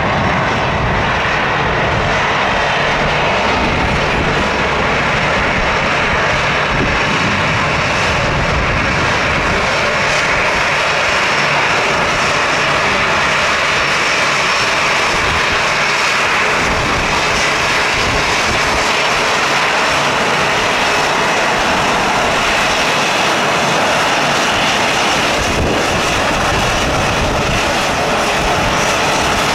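Jet airliner engines running close by, a loud, steady rush of engine noise that holds level throughout.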